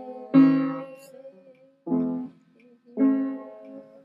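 Three chords struck one after another on a keyboard instrument, each ringing out and fading. The chords are being tried by ear to fit a line of the song.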